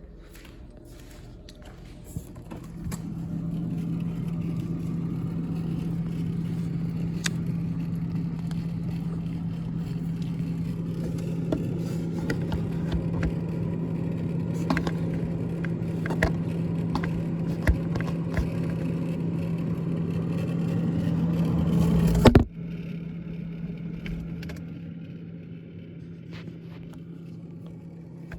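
GE top-freezer refrigerator running with a steady low hum and scattered rattling clicks from its evaporator fan. Near the end the noise drops off suddenly, leaving a quieter hum.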